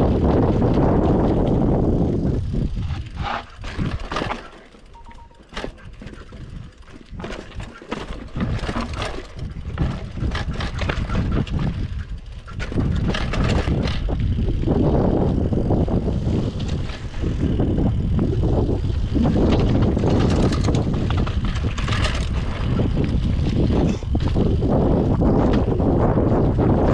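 Mountain bike descending a rough trail: wind buffeting the camera microphone, with the bike rattling and knocking over rough ground. It eases for a few seconds about four seconds in, then picks up again.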